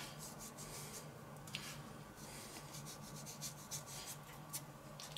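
Faint rustle of dried herb seasoning being rubbed between fingertips and sprinkled onto a tortilla, with a few light ticks.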